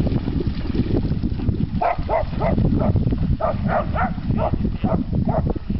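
A dog barking in quick runs of three or four high, short barks, starting about two seconds in, over a steady low rumble.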